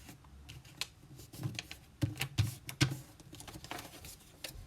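A sheet of printer paper being folded and creased by hand: irregular crisp crackles and taps, loudest about two to three seconds in.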